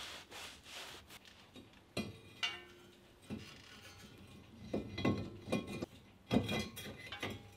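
A new cast-iron front brake rotor being handled and fitted onto the wheel hub: scattered light metallic clinks and knocks, most of them in the second half.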